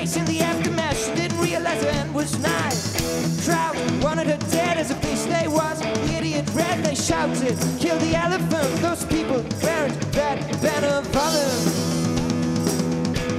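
Live garage rock from a guitar-and-drums duo: a male voice singing over electric guitar and drum kit. The singing stops about two seconds before the end, leaving the guitar and drums playing on.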